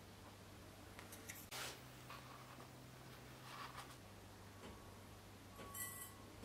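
Faint handling noises of ingredients being measured out: a few light clicks and brushing sounds from a metal measuring spoon and a plastic salt tub, over a low steady hum.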